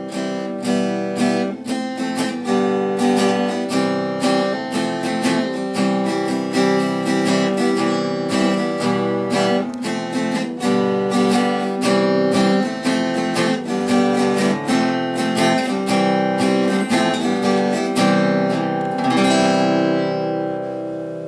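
Background music of an acoustic guitar strumming chords at a steady pace, ending on a last chord that rings out and fades near the end.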